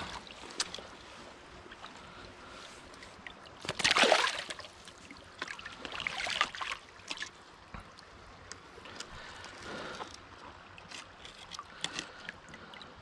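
Shallow river water splashing and sloshing around a landing net holding a fish, with the loudest splash about four seconds in and several smaller ones after it.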